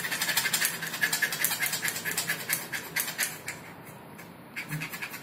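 Rapid rhythmic scraping of a metal striker along a magnesium fire-starter rod, shaving magnesium powder onto tinder, at about six strokes a second. The strokes ease off briefly about three and a half seconds in, then start again.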